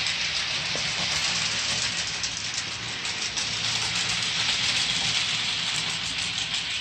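Model train running along the layout track: a steady whirring hiss of wheels and motor with fine rapid clicking from the rails.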